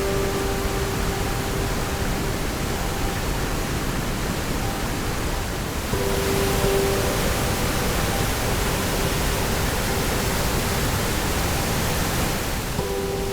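Tuolumne River whitewater cascading down granite, a steady loud rush of falling water that swells slightly about six seconds in.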